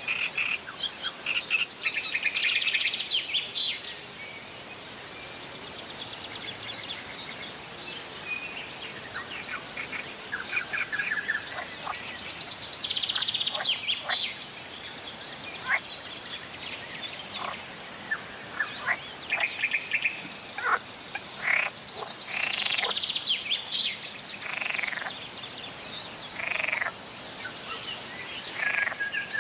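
Frogs croaking and songbirds singing together: fast chattering trills come and go throughout, and in the second half short rising-and-falling calls repeat every second or two.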